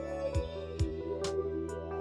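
Music with a steady beat: drum hits about twice a second over held chords and a bass line.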